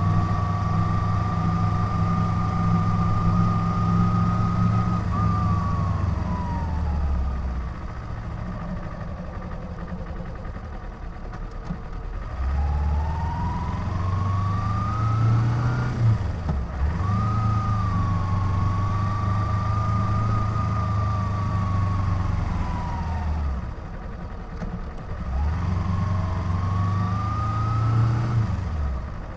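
Kawasaki Ninja 250 parallel-twin motorcycle engine under way, its pitch rising and falling with the throttle. It is steady at first, then slows and runs quieter for a few seconds. It pulls up again with a brief break for a gear change, holds, eases off, and pulls again near the end.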